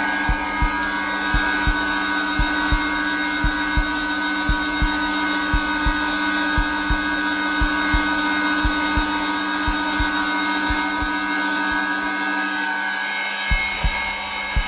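Zelmer vacuum cleaner running steadily at its lowest setting, a constant droning hum, overlaid with a heartbeat: soft low thumps in pairs about once a second, which pause briefly near the end.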